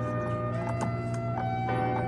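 Background music: held notes that change pitch every half second or so, with a few light percussive hits.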